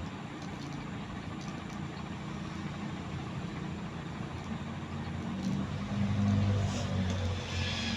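Atlantic Air ceiling fan running, its motor giving a steady low hum over a soft airy noise; the hum swells a little about six seconds in.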